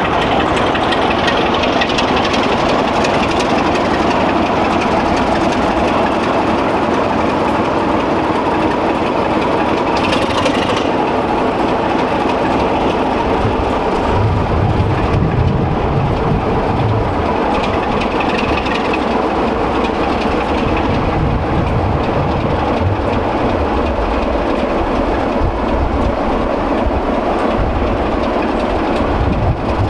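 A British Rail Class 33 diesel locomotive running light along the track, its Sulzer diesel engine running steadily. The low engine beat grows heavier as the locomotive draws closest, about halfway through.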